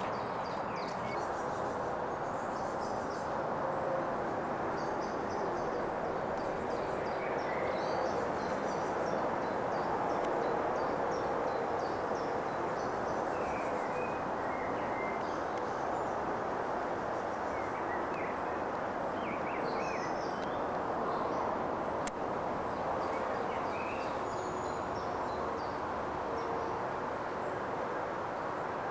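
Outdoor field recording from a Video8 camcorder's built-in microphone: small birds chirping in short, scattered calls over a steady background hiss.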